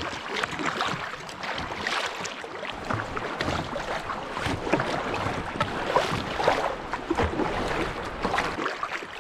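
River water splashing and rushing around a moving kayak, with irregular short splashes.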